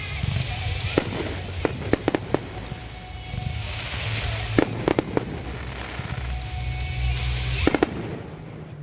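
Fireworks going off: a series of sharp bangs, several in quick clusters, with a spell of crackling about halfway through, over music with a steady low bass.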